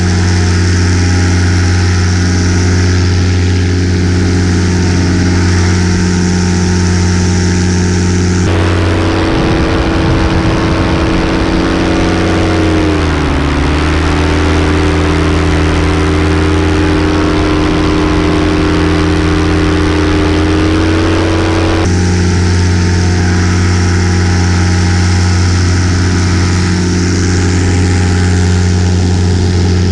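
Miniplane paramotor's Top 80 single-cylinder two-stroke engine and propeller running steadily in flight, a loud drone. The sound changes character abruptly about 8 seconds in and changes back about 22 seconds in. In between, the engine note dips about 13 seconds in, holds lower, then rises slightly.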